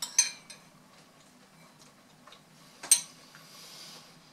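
A metal spoon clinking against a ceramic soup bowl: a few light clicks near the start and one sharper clink about three seconds in, followed by a faint hiss.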